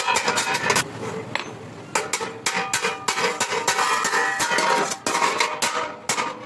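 Hand hammer blows striking metal, several a second in an uneven rhythm, over background music.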